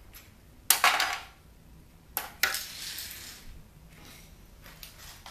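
Small hard scrap parts clattering down onto a surface: one clatter just under a second in, then two more in quick succession a little past two seconds.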